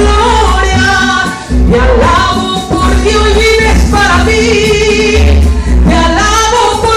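A woman singing a Spanish Christian worship song into a microphone, backed by a live band with a heavy low bass.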